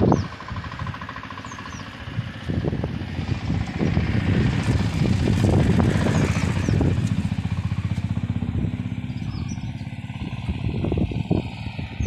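A vehicle engine running, swelling louder for a few seconds and then fading away. There is a sharp knock at the very start and a few more near the end, with birds chirping faintly.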